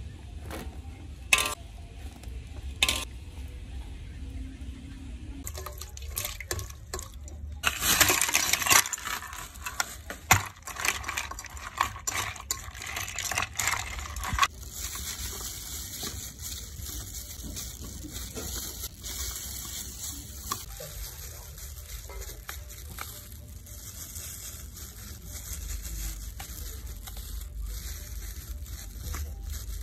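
Ice cubes clinking and water sloshing in a metal bowl as hands swish blanched greens through an ice-water bath. It is loudest in the middle, then gives way to softer, scattered clicks of handling.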